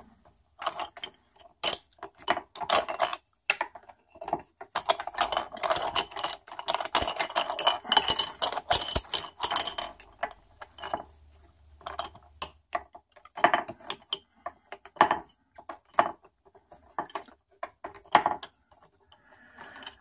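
Wooden dowel sticks clattering against each other and knocking into drilled holes in a wooden box as they are picked up and dropped in one by one. A dense run of rattling comes in the middle, then scattered single knocks.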